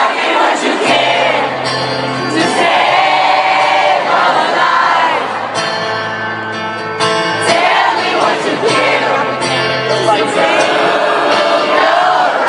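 Live rock concert music with the lead singer and the crowd singing along, heard through a phone's microphone in the audience.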